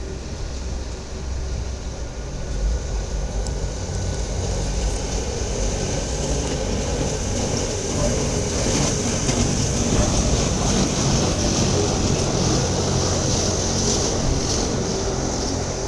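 Wengernalpbahn electric rack-railway train passing close by, its wheels running on the rails. The running noise grows louder about halfway through as the coaches go past, with a steady high-pitched hiss above it.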